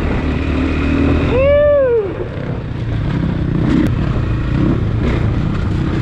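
Husqvarna 501 dual-sport motorcycle's single-cylinder four-stroke engine running steadily under way on a dirt trail, with rough trail noise. A short tone rises and falls once about one and a half seconds in.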